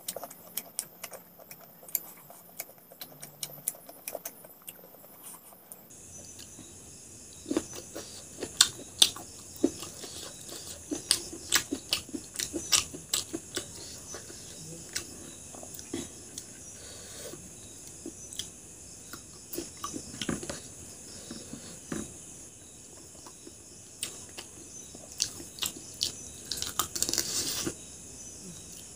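A person eating rice and chicken gizzard curry by hand: fingers mixing food on a plate and mouth chewing, heard as scattered short clicks and wet smacks.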